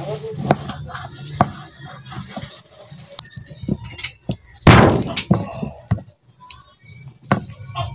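Kitchen knife knocking and clicking on a thick wooden chopping board as small pieces are cut, with scattered irregular strikes and one much louder sudden knock about halfway through.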